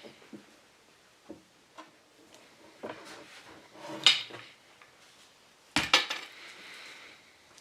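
Scattered clinks and knocks of small items being handled and set down on a work surface, the loudest about four seconds in and a quick cluster about two seconds later.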